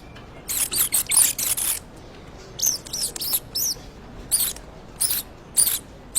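A small animal squeaking: an irregular string of short, high-pitched squeaks, a quick cluster in the first couple of seconds and then single squeaks spaced about half a second apart.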